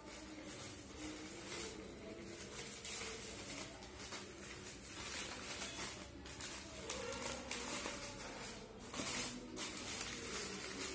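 Newspaper and thin plastic wrapping sheets crinkling and rustling in irregular bursts as food parcels are folded by hand.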